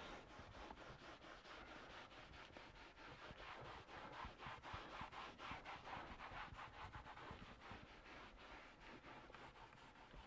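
Faint rubbing of an applicator pad wiping dressing onto a textured plastic dashboard, in quick repeated back-and-forth strokes, a little louder around the middle.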